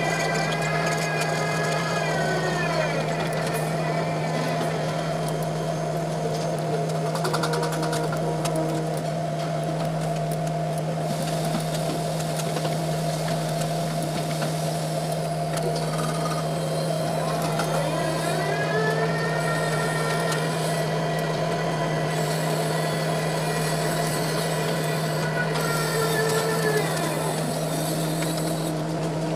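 Tower crane drive motors heard from the operator's cab: a steady electric hum with a whine that falls about two seconds in, rises as the crane gets moving again partway through, and falls as it slows near the end.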